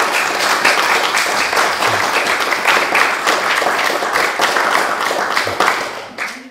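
A small audience applauding, many hands clapping together. The applause thins near the end and then cuts off abruptly.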